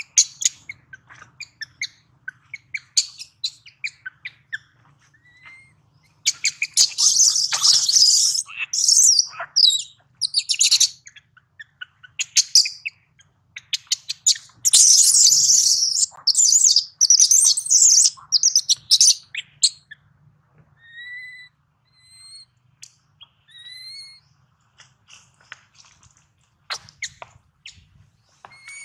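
Baby long-tailed macaque crying: rapid high-pitched squeals and chirps, the hunger cries of an infant wanting to nurse. They come in two long loud bouts about a quarter of the way in and around the middle, then give way to thin short rising chirps.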